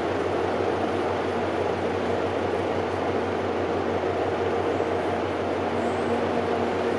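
Steady mechanical drone of a passing container ship's engines and machinery: an even rumbling noise with a low hum and a few steady tones, unchanging throughout.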